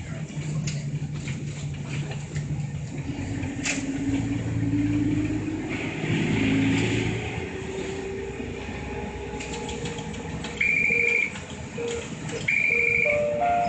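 Route bus engine heard from inside the cabin, running low and then revving up in pitch as the bus pulls away and accelerates, then settling into a steady run. Two short, high electronic beeps sound near the end.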